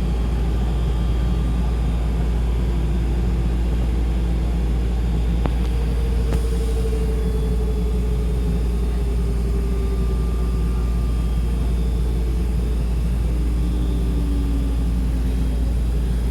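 Washing machine drum slowing down at the end of its spin cycle: a steady low rumble with a faint hum that slowly drops in pitch.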